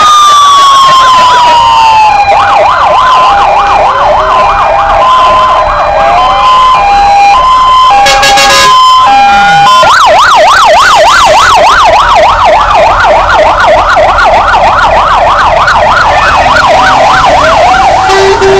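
Several fire engine sirens sound at once. A slow falling wail and a two-tone hi-lo siren alternating between two pitches are joined about ten seconds in by a fast yelp. A short loud blast sounds about eight seconds in.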